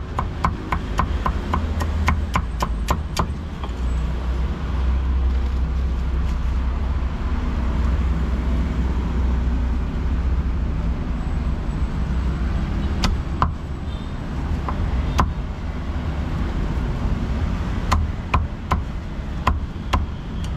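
Cleaver chopping meat on a wooden block: a quick run of chops, about four a second, for the first few seconds. Then a few single chops come later, over a steady low rumble of street traffic.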